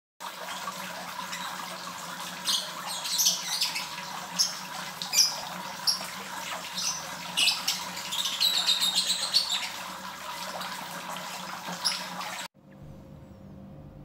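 Small birds chirping again and again over a steady outdoor hiss. The sound cuts off suddenly near the end, leaving only a faint steady hum.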